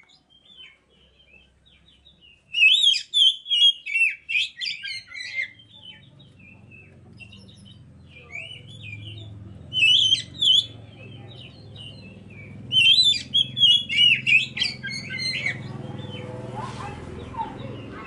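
Oriental magpie-robin (white-bellied 'kacer poci') singing rapid whistled phrases in three bouts, about two and a half, nine and a half and thirteen seconds in. Under the song, a low hum grows louder from about six seconds in.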